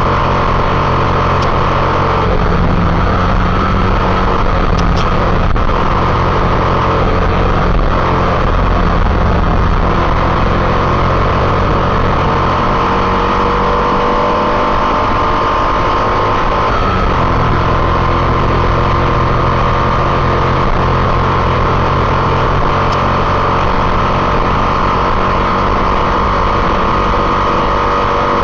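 Motorcycle engine running steadily while riding, with a brief easing of the low rumble about halfway through.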